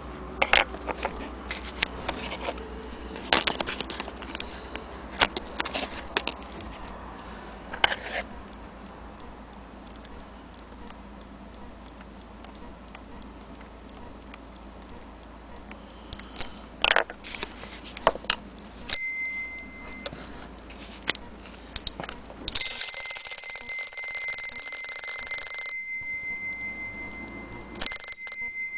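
Brass bell of a Hermle ting-tang strike mantle clock movement struck three times in the second half, each strike ringing on a clear steady tone. The middle strike is the loudest, ringing for about three seconds before it cuts off suddenly. Before the strikes, irregular sharp metal clicks from the movement being handled.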